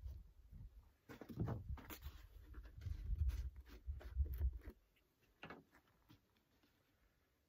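Handling noise while refuelling a chainsaw: plastic fuel and bar-oil jugs and their caps knocked, twisted and set down, a cluster of irregular clicks and knocks in the first five seconds, then near quiet.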